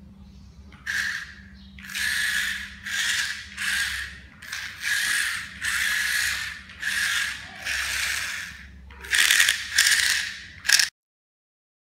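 Small electric gear motors of a homemade RC car whirring in short bursts, about ten times, with a rattly gearbox sound each time the car drives.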